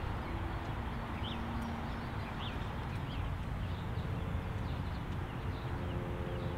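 Outdoor ambience in an open park: a steady low rumble of wind and distant traffic with faint, scattered bird chirps. A few faint steady tones come in about four seconds in.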